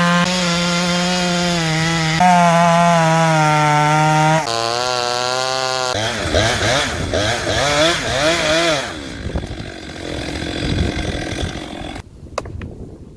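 Stihl 028 two-stroke chainsaw running at high speed in several abruptly spliced stretches, then its pitch wavering up and down over a few seconds before it turns rougher and fades out. A few sharp clicks come near the end.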